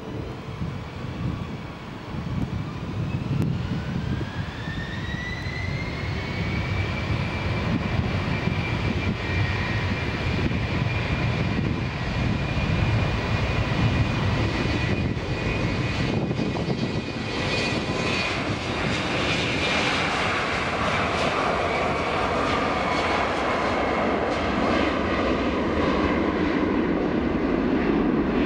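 Embraer E195 jet's two GE CF34-10E turbofans spooling up to takeoff power: a whine rising in pitch over a few seconds, then holding as a steady high whine over a growing loud engine noise as the jet accelerates down the runway.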